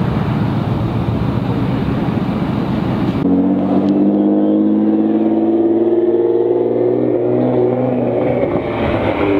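Car engines and exhaust: a dense, loud rumble at first, then, after a sudden cut about three seconds in, one car's exhaust drones with a clear steady tone that slowly falls in pitch as the car drives by.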